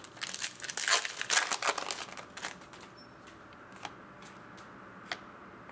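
Baseball cards being handled and sorted by hand: a rustling, crinkling flurry for about two seconds, then a few light clicks and flicks.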